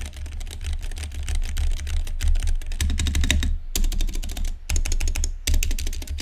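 Fast typing on a Womier K66 mechanical keyboard with Gateron Red linear switches and HyperX Pudding keycaps: a dense run of key clacks, broken by a few short pauses in the second half.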